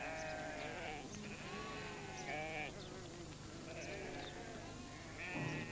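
Sheep bleating several times, each call short and wavering.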